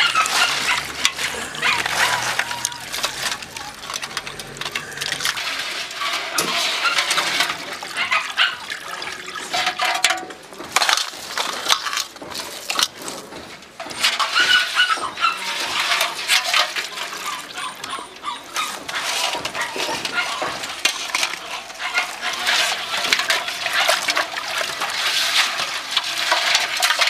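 Crab pieces being handled on metal plates and in bowls: busy clicking and crackling, with water swishing in a large aluminium pot near the end.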